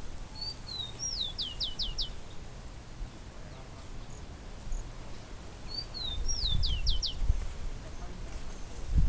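A songbird singing two identical phrases about five seconds apart, each a short slurred note followed by four or five quick, high, downward-swept notes. A low rumble of wind or handling noise sits underneath.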